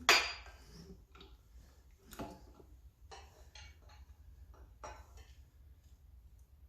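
A metal pry tool clanking and clinking against a 5.7L Vortec's connecting rods and crank as each rod is pried on to check its bearing for play: one sharp clank right at the start, then a few lighter clinks.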